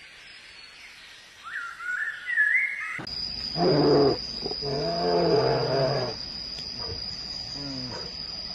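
A bear making several drawn-out, low moaning calls, starting about three seconds in, with a steady high-pitched whine underneath. Before that there are only a few faint, high chirping glides.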